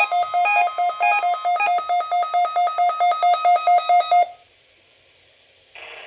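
Emergency alert test signal: rapid electronic beeping at about five beeps a second, with a few higher notes mixed in. It cuts off suddenly about four seconds in. After a moment of near silence, a radio announcer's voice begins near the end.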